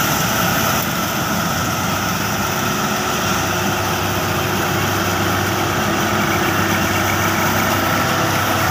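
Fiatagri (Laverda) 3450 combine harvester running steadily under load while cutting and threshing a paddy crop: diesel engine with the whine of the threshing machinery.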